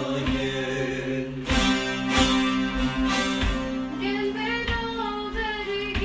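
An ensemble of many bağlamas (long-necked Turkish saz lutes) plucking and strumming a Turkish folk-song melody together.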